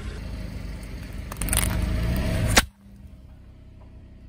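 Car tyre rolling over asphalt onto a row of wax apples. Crunching and squashing gets louder about one and a half seconds in and ends in a sharp crack. The sound then cuts off abruptly to a much quieter, steady background.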